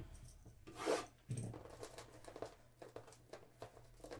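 Fingers picking and scratching at the plastic shrink wrap on a trading-card hobby box, the film rubbing and crinkling, with a louder scrape about a second in and a dull knock of the box just after.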